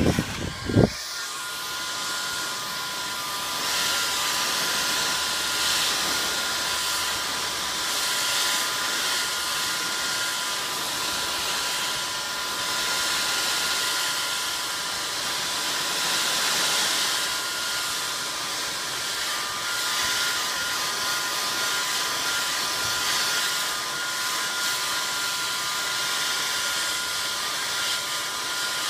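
Electric heat gun running, a steady rush of hot air with a thin whine from its fan motor, gently swelling and dipping in level as it is swept over a kayak's polyethylene hull to soften the plastic.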